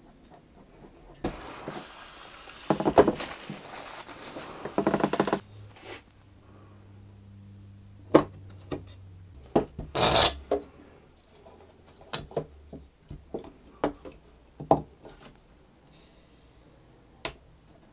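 Wood rubbing and scraping for about four seconds, then a string of separate sharp wooden knocks and clicks as wooden blocks and a wooden bar are handled and set down around a cello back.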